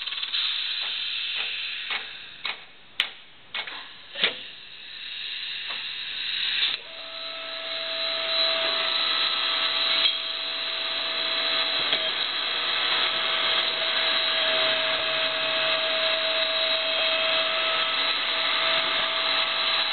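Powered bearing puller at work: a few sharp clicks and knocks over a hiss in the first four seconds, then from about seven seconds in a steady machine hiss with a faint constant whine as its jaws pull on the bearing.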